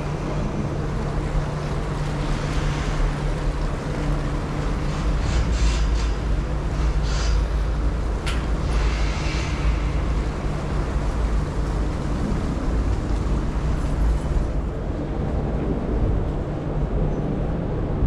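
Steady low engine rumble with a constant hum, and brief rushing noises now and then.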